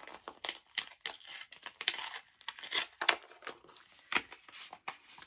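Hands rustling and crinkling paper packaging while unpacking a mail-order parcel, with many small clicks and taps.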